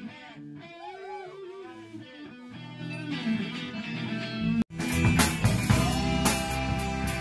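Electric guitar playing a lead line with notes bending in pitch. About two-thirds of the way in it breaks off suddenly into a full band with a drum kit, cymbals striking over the guitar and bass.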